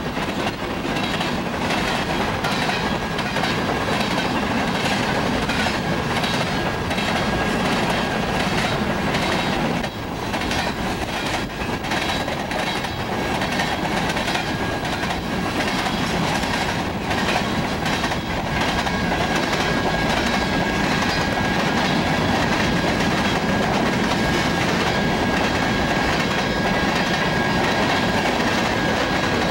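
Covered hopper cars of a freight grain train rolling past at speed, their wheels clattering over the rail joints in a steady clickety-clack. A thin, steady high ring runs through the latter half.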